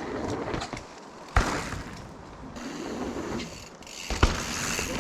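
Mountain bike rolling down a rough dirt trail: tyre rumble and rattle from the bike, with a sharp knock about a second and a half in and another near the end.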